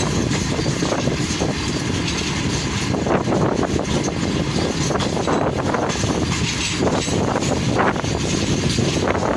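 Passenger train running at speed, heard from aboard: a steady rush of wind and rail noise with irregular clatters of the wheels over rail joints.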